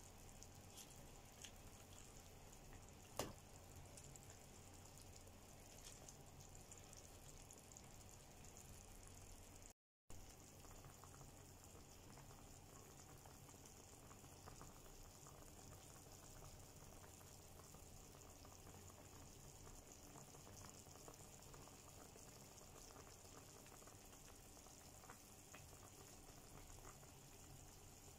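Faint steady bubbling of a pot of chicken tinola soup boiling, with one sharp click about three seconds in. The sound drops out briefly about ten seconds in.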